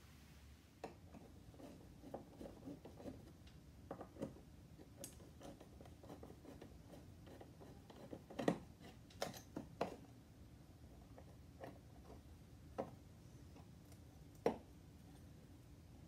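Light, scattered clicks and taps of a hand screwdriver backing out the screws of an old switch cover plate and lifting the plate off the box.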